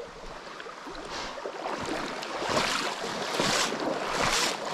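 Legs wading through a shallow, running river, a splashing surge with each stride about once a second, louder from about two seconds in.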